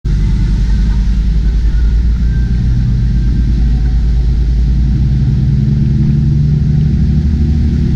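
Speedboat running flat out at sea: a loud, steady low engine drone with the rush of its wake and rooster-tail spray.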